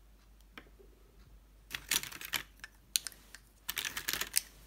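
Lipstick tubes clicking and clattering against one another as a hand rummages through a wire basket full of them, in quick irregular clusters starting a little under two seconds in.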